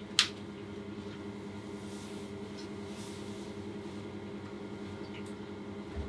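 Steady low mechanical hum, with a sharp click just after the start and a short low thump near the end.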